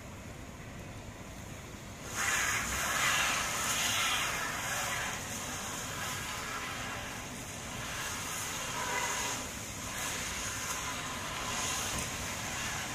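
A car stuck on an icy hill spinning its tyres on the ice, a hissing whir that swells and falls in pitch as the engine is revved. It starts about two seconds in.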